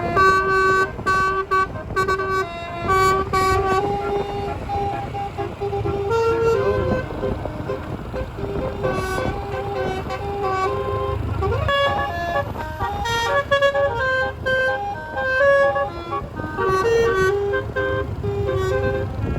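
Twelve-note roof-mounted telolet horn, a set of air-horn trumpets, playing a tune in short, stepped notes over a low engine rumble.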